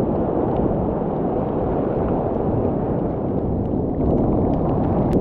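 Whitewater of a broken ocean wave rushing around a kayak as it rides the foam, a steady low rush with wind buffeting the microphone; it grows a little louder about four seconds in.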